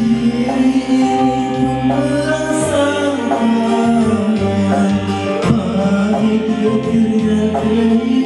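A man singing into a handheld microphone over a backing music track, his voice amplified through the mixer.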